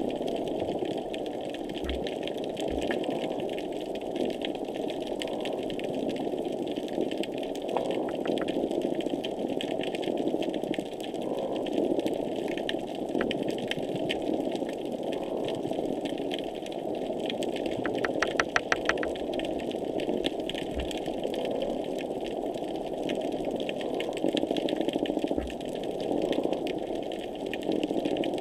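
Underwater ambient noise picked up by a hydrophone: a steady, dense hiss with constant fine crackling clicks and a few low thumps, and a quick run of about ten sharp clicks about two-thirds of the way through.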